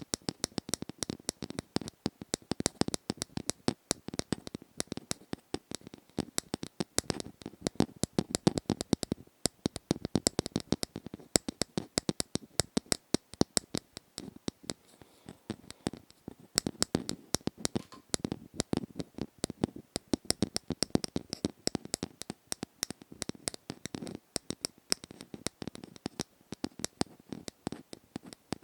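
Close-up ASMR tapping and scratching: a rapid, irregular stream of small clicks and taps, several a second without a break.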